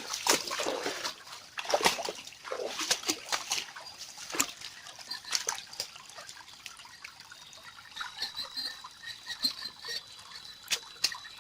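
Shallow river water splashing and trickling in irregular bursts, busiest in the first few seconds and sparser after.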